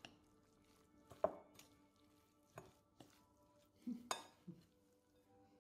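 A metal spoon mixing raw ground pork with chopped onion and carrot in a bowl: scattered sharp clinks and taps of the spoon against the bowl, loudest about a second in and again about four seconds in, with a couple of soft squishes from the mixture. Faint soft background music underneath.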